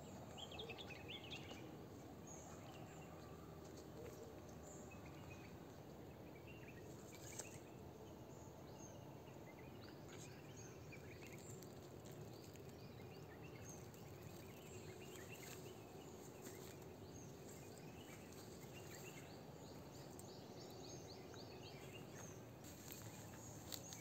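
Faint outdoor ambience: a steady low hush with scattered short bird chirps, now and then a few brief clicks.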